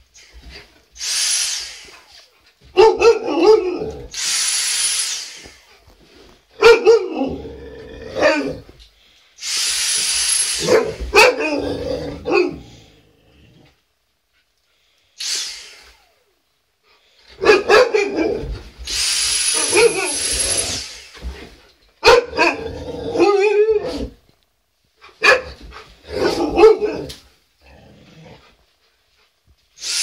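Alaskan malamutes barking and howling in long, wavering calls at a Dyson vacuum cleaner. The vacuum runs in short bursts of a few seconds with a high whine, stopping fully between bursts.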